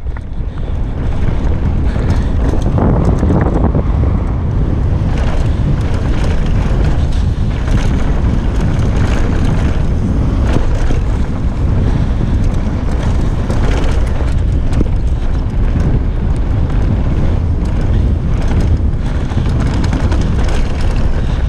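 Wind buffeting the microphone of a camera on a mountain bike running downhill at speed, over the noise of tyres rolling on dirt and gravel trail. Scattered knocks and rattles come from the bike on rough ground.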